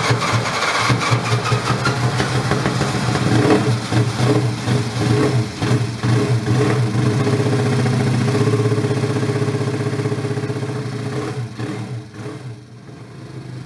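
Honda CB350 racer's parallel-twin four-stroke engine running on a stand with small swells in speed. The sound falls away about twelve seconds in, then builds again near the end.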